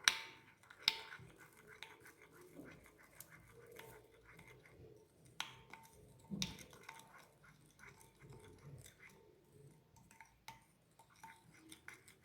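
A spoon adding ground rosemary to olive oil and stirring it, with light scraping and a few sharp clicks of the spoon against the container.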